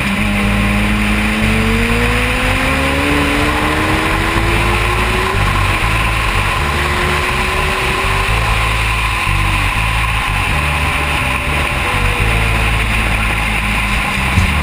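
Yamaha FZ1's inline-four engine with a Mivv Suono exhaust accelerating hard, its pitch climbing for several seconds, dropping at a gear change about five seconds in and climbing again, over heavy wind noise.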